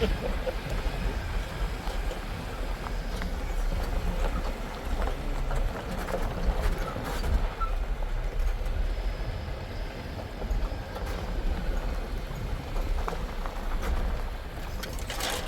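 A Jeep moving slowly along a rocky trail: a steady low rumble from the engine and road, with scattered knocks and rattles from the tyres and body over the stones.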